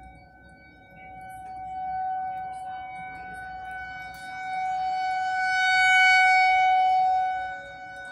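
Federal Signal 2001-130 rotating electromechanical outdoor warning siren sounding a steady alert tone. Its loudness swells and fades as the rotating head sweeps past, and it is loudest about six seconds in. The siren is sounding for a severe thunderstorm warning with destructive winds.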